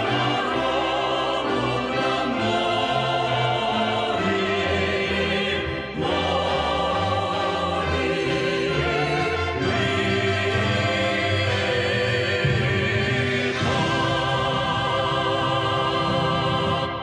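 Solemn choral music with orchestral accompaniment, a choir singing sustained lines.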